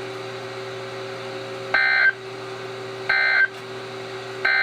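Three short, buzzy digital data bursts about a second and a half apart: the SAME end-of-message code of NOAA Weather Radio, marking the close of a warning broadcast. A low steady hum from the received signal runs underneath.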